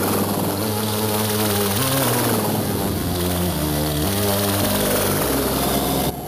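Music of sustained low notes that step to a new pitch every second or so, under a loud whooshing noise that sweeps up and down. It cuts off abruptly at the end.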